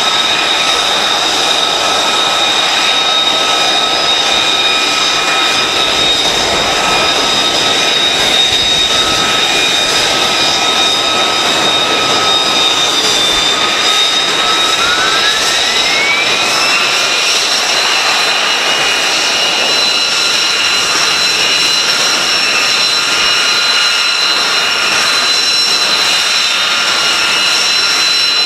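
An F-35B's Pratt & Whitney F135 jet engine running: a steady high whine of several tones over a rush of noise. A little past halfway, one tone rises over about two seconds as the engine speeds up, then holds.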